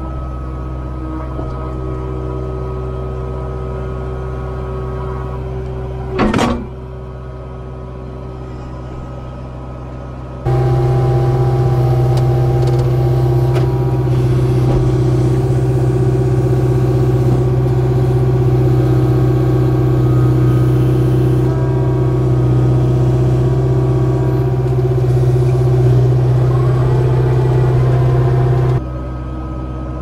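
Diesel engine of a Kubota KX057-4 mini excavator running steadily while its bucket and thumb handle a white oak log round, with one brief sharp noise about six seconds in. From about ten seconds in the engine is suddenly louder and deeper, until it drops back just before the end.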